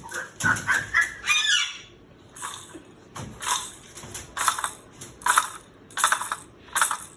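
Pet parrot calling: some wavering calls at first, then a run of about seven short, harsh squawks, each under a second apart.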